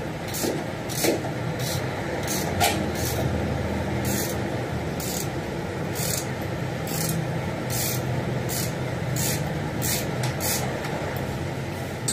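Toyota Coaster's diesel engine running steadily at idle, with short high hissy ticks about once a second.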